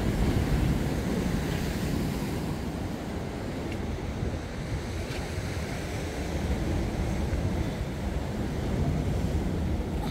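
Sea surf washing against a rocky shore, with wind buffeting the microphone.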